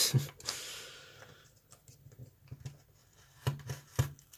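Light clicks and taps of a lock cylinder and its key being handled: a few sharp clicks at the start and a couple more near the end, with quiet handling in between.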